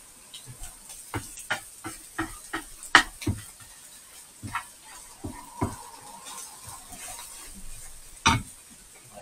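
A cooking utensil knocking and scraping against a frying pan as food is stirred, in a quick run of strikes in the first few seconds, more a little later and one loud knock near the end, over a faint steady sizzle of frying.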